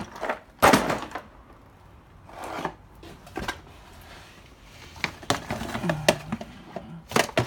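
Knocks, thuds and scrapes of items being handled in a cramped indoor space: a loud knock about a second in, a few more spread out, then a busier run of clatter and scraping in the second half.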